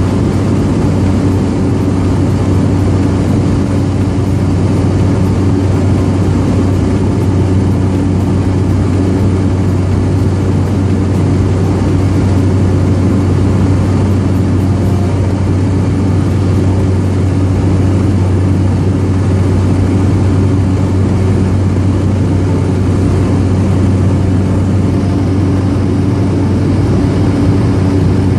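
Steady engine and propeller drone of a small propeller plane, heard from inside the cabin: a loud, constant low hum over airy noise, its pitch unchanging.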